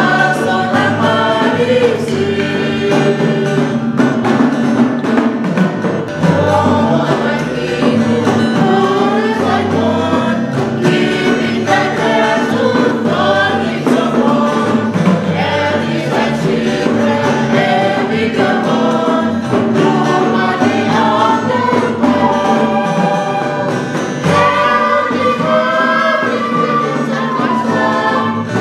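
Small mixed choir of men and women singing a Christian hymn in Toba Batak, accompanied by an acoustic guitar whose bass notes change about once a second.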